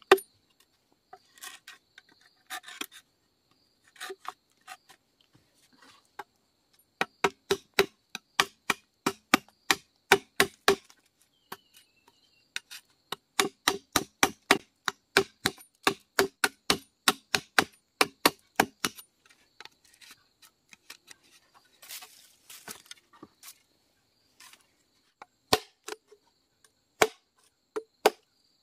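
A machete chopping and notching a green bamboo tube. It makes runs of sharp knocks, about three a second, each ringing briefly, with sparser scraping cuts between the runs.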